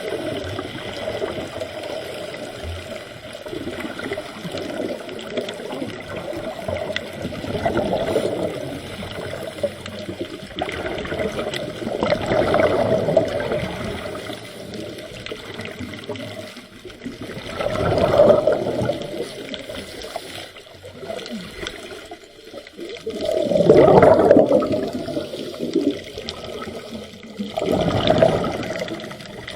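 Scuba diver's exhaled bubbles rushing out of the regulator underwater in surges about every five or six seconds, between low underwater rumble.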